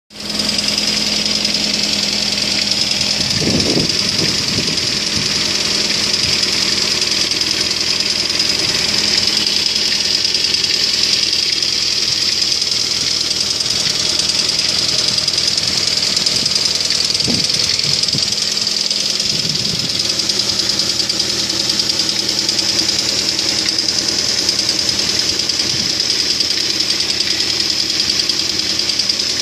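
Car engine idling from a cold start, with a fast knocking and crackling from the timing drive (belt or chain end of the engine). A few dull low thumps come at about 4 s and again around 17 to 20 s.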